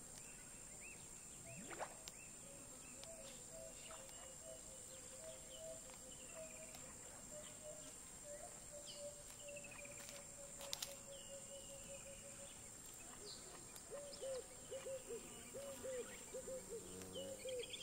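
Natural bush ambience: a steady high-pitched insect drone under scattered bird chirps and whistles. From about three quarters of the way through, a low call repeats about twice a second.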